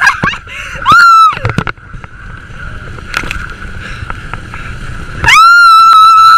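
High-pitched screams from a rider on a towed inflatable tube: a short rising one about a second in, then a long held one starting near the end. Between them, the rush of water and wind as the tube skims across the lake.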